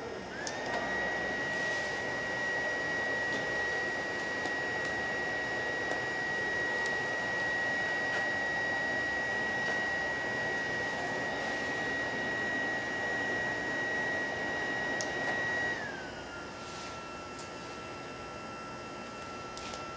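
BioLite CampStove's built-in fan switched on with its button, whining steadily at a high pitch over the rush of air it blows into the wood fire. About 16 seconds in, the whine glides down to a lower steady pitch and the rush gets quieter.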